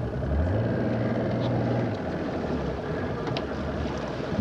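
Boat's outboard motor running at low speed, a steady low drone that is louder for the first couple of seconds and then settles lower, with wind and water noise over it.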